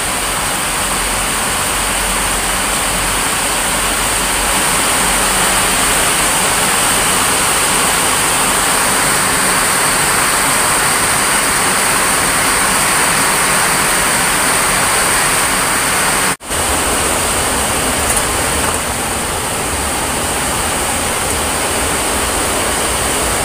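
Heavy rain falling, a loud, steady hiss that cuts out for a moment about two-thirds of the way through.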